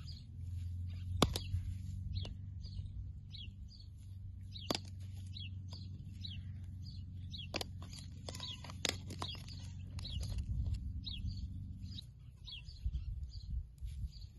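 Small birds chirping repeatedly in short, high calls, over a steady low hum that stops about twelve seconds in, with a few sharp clicks scattered through.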